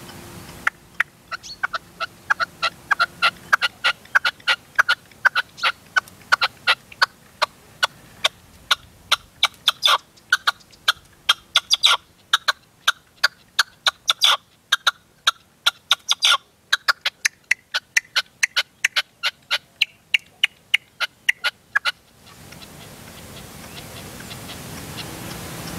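Caged decoy red-legged partridge calling: a long run of short, sharp notes at about four a second, with a few brief pauses, stopping about 22 seconds in.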